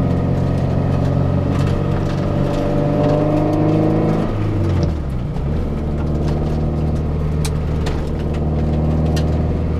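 Toyota MR2 Spyder's 1.8-litre four-cylinder engine running steadily while driving, heard from inside the cabin. About four and a half seconds in, the engine note drops in pitch and then holds steady lower.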